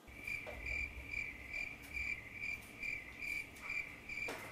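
An electronic alarm beeping a single high tone, evenly pulsed about twice a second, with a couple of light knocks.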